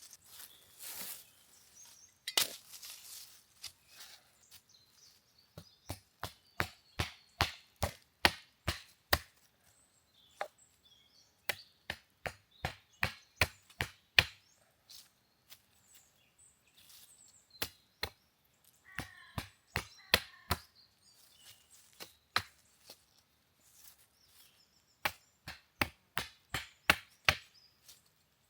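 Wood being chopped: quick, sharp blows about two a second, in runs of several strokes with short pauses between.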